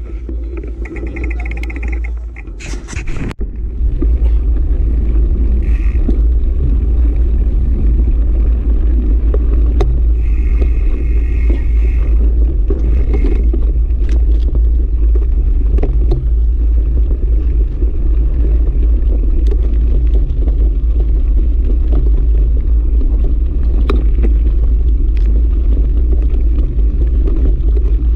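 Wind buffeting the microphone of a camera on a moving mountain bike, with the tyres crunching over sandy, gravelly ground and scattered rattles from the bike. It comes in loud and steady about three and a half seconds in, as the ride gets under way.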